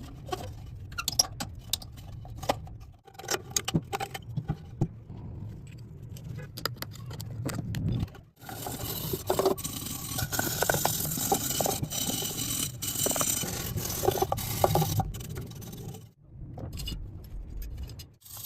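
Metal parts and hand tools clinking, clicking and scraping, as in taking apart and cleaning an old lamp, in several stretches that cut off abruptly, with the busiest scraping in the middle.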